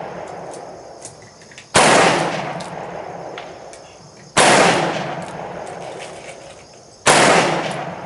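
Erma Model 777 .357 Magnum revolver fired three times in slow, aimed single shots about two and a half seconds apart, each shot followed by a long fading echo.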